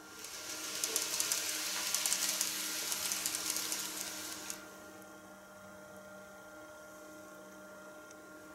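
KATO N-scale model of a Tobu 50070-series electric train running along the track: a loud rolling rattle with fast wheel clicks comes up about half a second in and drops off suddenly after four and a half seconds, leaving a faint steady hum.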